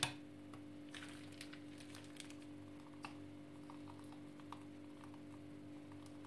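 Faint steady hum with scattered soft clicks and squishes as whipped cream is squeezed from a piping bag into stemmed glasses.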